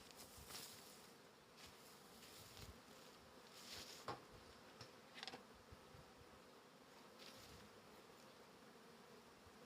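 Honey bees buzzing at a hive: a faint, steady hum, with a couple of brief soft knocks about four and five seconds in.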